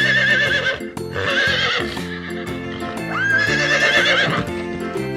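Horse neighing: three shrill, wavering whinnies, over children's background music.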